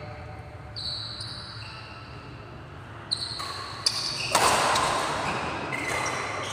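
Badminton rally: rackets striking the shuttlecock with sharp pops, and short high squeaks of shoes on the tiled court floor. From about four seconds in, a louder rushing noise takes over.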